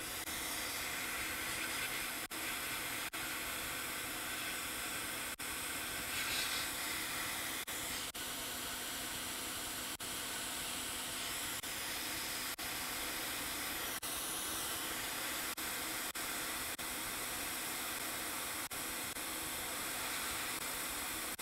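Quick 861DW hot air rework station blowing a steady hiss of hot air onto a fluxed chip, heating its solder so the chip can be lifted off the logic board with tweezers.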